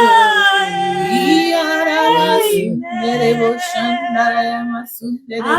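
A voice singing 'hallelujah' slowly in long, held notes, a worship song; the singing breaks off briefly near the end and then starts again.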